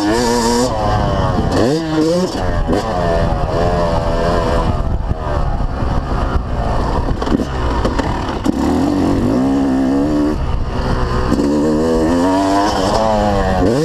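Yamaha YZ250 two-stroke dirt bike engine running hard on a motocross track, its pitch rising and falling with the throttle and gear changes. It revs up sharply about two seconds in and again near the end.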